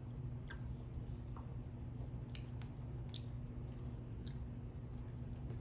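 Ice cream eaten with a metal spoon from a cup: scattered soft clicks and wet mouth sounds, about seven in all, over a steady low hum.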